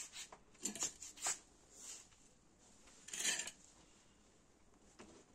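Tools and wood being handled on a workbench: a few short knocks and clicks, then a brief scraping rasp about three seconds in, with no drill motor running.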